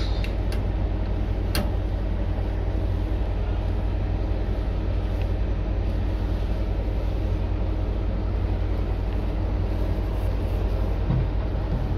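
A steady low mechanical hum, with a few faint clicks in the first couple of seconds.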